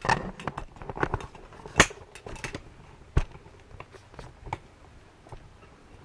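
Irregular knocks and clicks of handling, the sharpest about two and three seconds in, thinning out and fading over the last second or so.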